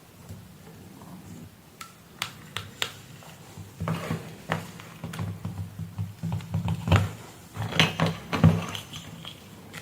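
Irregular sharp clicks and taps of hand tools, test leads and the adapter being handled on a workbench, thickening after about 4 s, over a steady low electrical hum.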